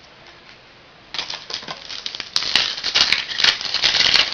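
Trading card pack being handled: a crackling rustle of the wrapper and cards with sharp clicks, starting about a second in and growing louder.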